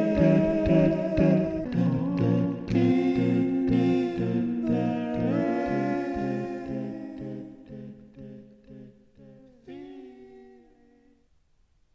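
Layered a cappella vocal loops from a Boss RC-505 MK2 loop station: stacked sung and hummed harmonies over an evenly pulsing low part. The loops fade out, the pulse drops away near the end, and the song ends on held notes.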